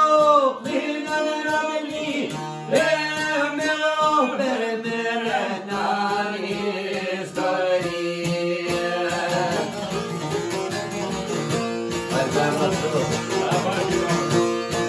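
Albanian folk music played live on a long-necked sharki lute and a mandolin, both plucked with quick strokes. A man sings over them for the first five seconds or so, then the two instruments carry on alone.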